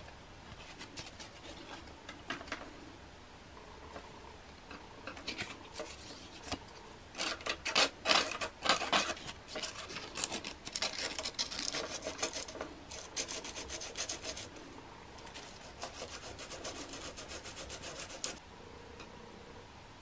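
Coarse P100 sandpaper rubbed against the cut end of a fishing rod blank to smooth it: a few scattered scrapes at first, then a long run of rapid back-and-forth strokes that stops shortly before the end.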